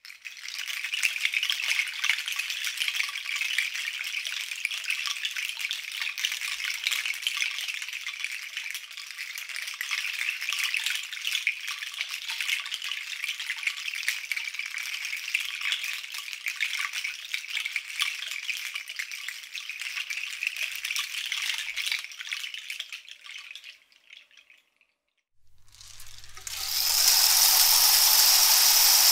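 Shaken rattle percussion: a dense crackle of many small beads pouring and rolling, swelling and ebbing, then fading out about 23 seconds in. After a brief gap, a steady hiss with a low hum starts near the end.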